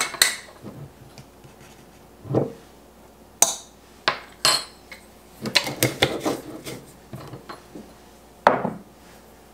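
Kitchen utensils and dishes clinking and knocking against a mixing bowl while baking ingredients are measured in: scattered separate clicks and knocks, several close together a little past halfway.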